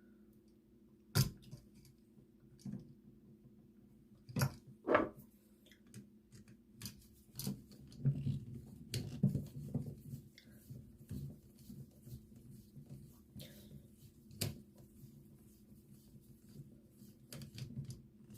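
Irregular clicks and taps of a wall toggle switch and its stiff copper wires being handled while the wires are pushed into the switch's terminals, with a few sharper knocks among them.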